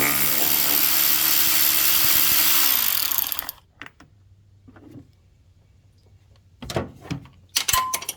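Cordless power tool running loose on a bolt of a truck's radiator guard for about three seconds, then winding down and stopping. A few short knocks follow near the end.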